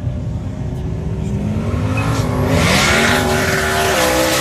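High-powered roll-racing cars at full throttle, the engine note rising in pitch and growing louder as they accelerate, with a couple of gear changes near the end.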